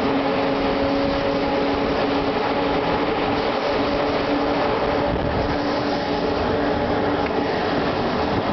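Passenger train running along the track, heard from a window of one of its coaches: a steady noise of wheels on rails with a steady droning hum over it.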